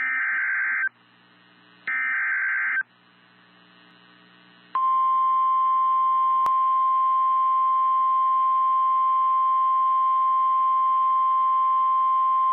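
NOAA Weather Radio alert sequence. First come the last two of the three SAME digital header bursts: under a second each of high, buzzy data tones, about a second apart. About five seconds in, the steady 1050 Hz warning alarm tone starts and holds. Together they mark the start of a new warning broadcast.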